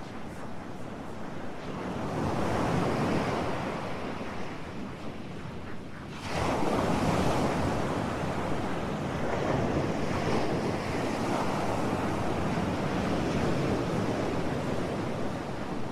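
Ocean waves washing in as a steady rushing wash that swells and eases, with a sudden surge about six seconds in.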